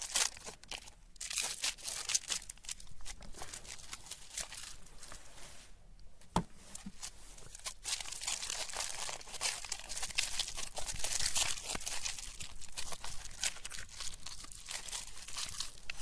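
Hard candy lollipops crunching and cracking as they are crushed in a meat grinder: a dense run of crackles, broken by a short lull about six seconds in that ends with one sharp snap.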